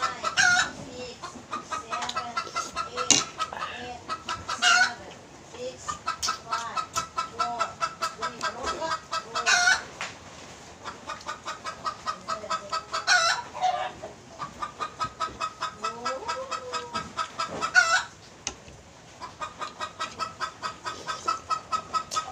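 Chicken clucking in runs of quick, even clucks, each run broken off by a louder, sharper call, repeating about every four to five seconds.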